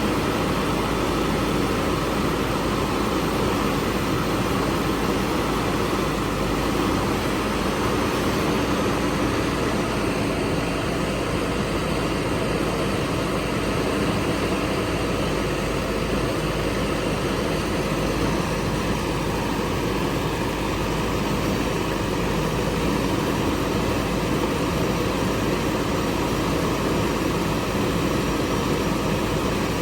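Heavy diesel engines of a backhoe loader and tractors running steadily at a loading site.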